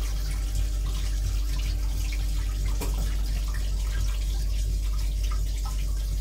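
Stainless-steel train vacuum toilet partway through a flush, its rinse water running and swirling steadily round the bowl over a low hum. One sharp click comes about three seconds in.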